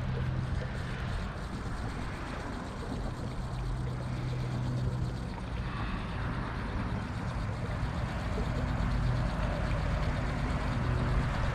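Wind buffeting the microphone: a steady low rumble with a hiss over it.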